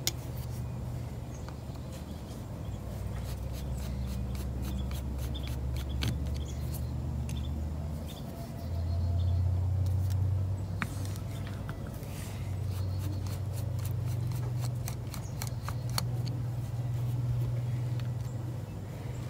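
Screwdriver work on a small outboard carburetor: scattered light metal clicks and taps as the cover screws are backed out and set down, with hands and a sleeve brushing close to the microphone over a steady low hum.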